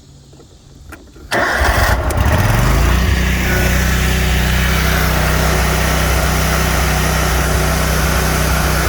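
The Wright Z zero-turn mower's 28 hp Kawasaki FX V-twin engine starts about a second in, catches almost at once and rises in speed, then settles into steady running.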